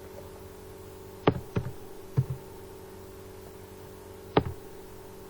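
Four sharp taps, three close together between about one and two seconds in and one more about four seconds in, over a steady hum.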